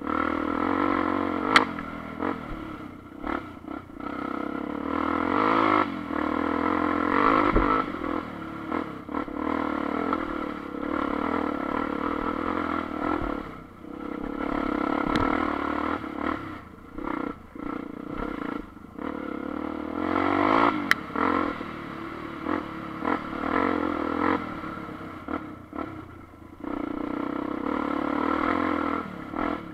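Onboard sound of a 250 cc single-cylinder four-stroke enduro motorcycle riding a rocky forest trail. The engine rises and falls with the throttle and drops off briefly several times, with rattles and a few sharp knocks from the bike over the rough ground.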